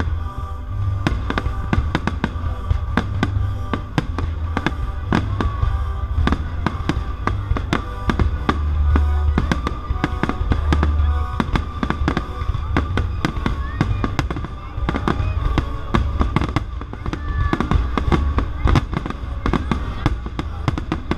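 Fireworks display, with many rapid bangs and crackles of shells bursting, over live orchestral music.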